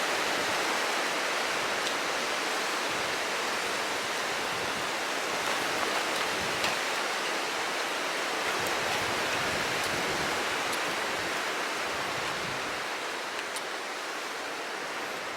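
Steady rushing hiss of strong wind and breaking surf on a beach, with a few faint ticks and no pauses; it eases slightly near the end.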